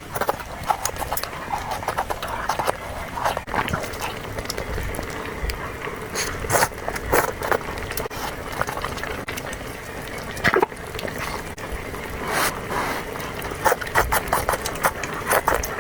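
Close-miked eating sounds: irregular wet chewing, lip-smacking and mouth clicks of someone eating food.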